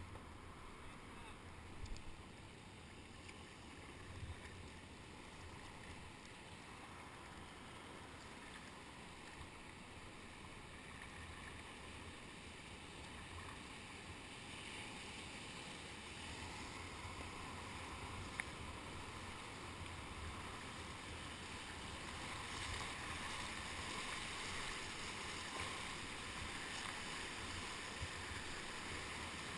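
River water swishing around a whitewater kayak as it is paddled, with a few light knocks. The rush of a rapid grows louder over the last third as the kayak runs into whitewater.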